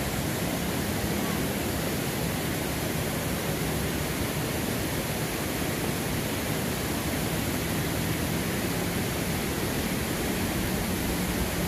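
River water rushing over large rocks in rapids: a steady, even rush of noise.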